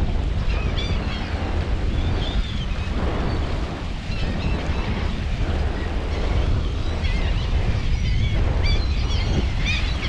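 Strong wind buffeting the microphone, with gulls calling over it: many short calls scattered throughout.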